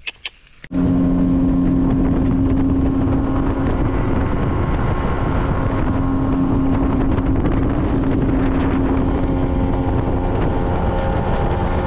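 Outboard motor running steadily as a small boat travels, with wind rushing over the microphone. It begins abruptly just under a second in.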